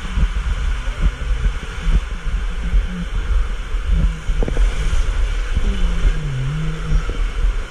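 Water rushing and a heavy rumble as a rider slides feet-first through a fiberglass water slide tube and out into the splash-down runout. A few wavering low tones and knocks sound now and then.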